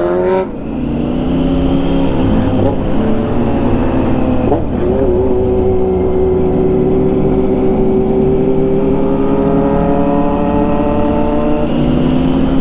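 Vehicle engine under way. A rising rev drops off about half a second in, like a gear change, and the engine note then holds fairly steady and climbs slowly. It wobbles briefly twice in the first five seconds and steps in pitch near the end.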